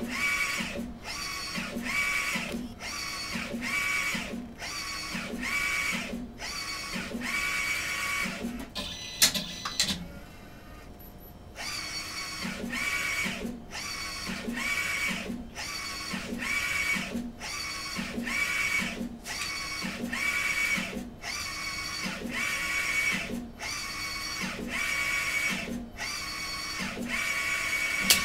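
Direct-to-garment inkjet printer printing onto a T-shirt: the print-head carriage sweeps back and forth with a whining motor, a little under two passes a second. It pauses for about two seconds around ten seconds in, then resumes.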